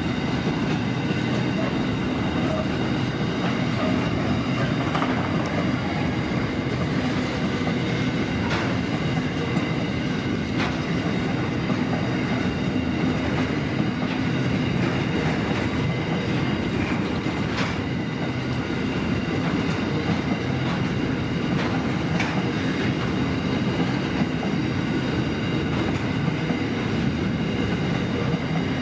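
Long freight train of open hopper wagons rolling steadily past: a constant rumble of steel wheels on rail, with a few sharp clanks and faint high squeal from the wheels.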